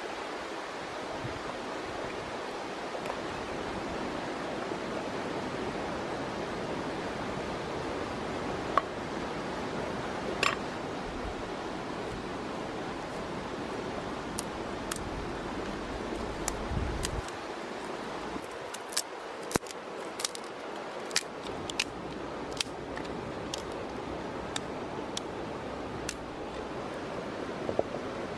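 Steady outdoor rushing noise with sharp clicks and snaps scattered through it, coming thickly in the second half as a small twig fire is laid and lit under a clay pot.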